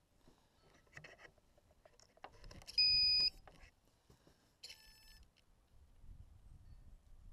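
An electronic device beeps: one loud, steady half-second beep about three seconds in, then a second, fainter beep about two seconds later. Faint clicks and handling sounds come around them.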